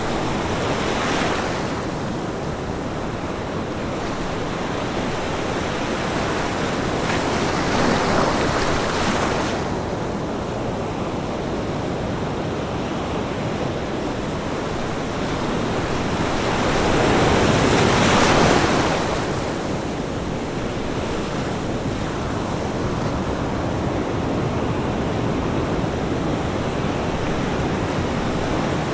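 Ocean waves breaking and washing up a beach, a steady surf hiss with three larger waves swelling and fading: one about a second in, one near the middle and the loudest about two-thirds of the way through.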